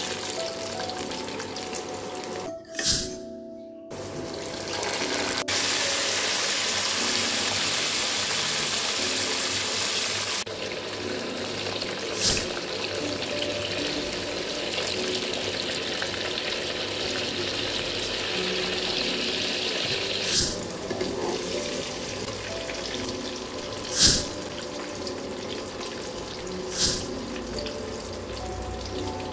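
Sliced ripe plantain sizzling and bubbling in hot frying oil, loudest for several seconds early on, then easing off. A few sharp clicks, over background music.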